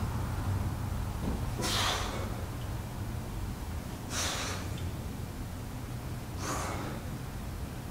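A man's sharp, forceful exhales, three of them about two and a half seconds apart, one with each crunch, over a low steady hum.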